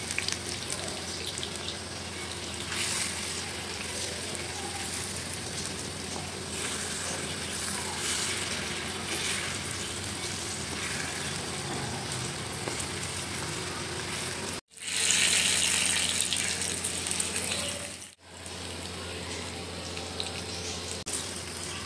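Hot oil sizzling and crackling as batter-coated potato pakoras deep-fry in an iron karahi. The sizzle gets louder for about three seconds past the middle.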